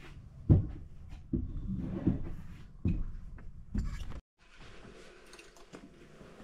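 About five dull knocks, roughly a second apart, over a low rumble. They are followed by an abrupt drop to a faint, quieter background with a few light clicks.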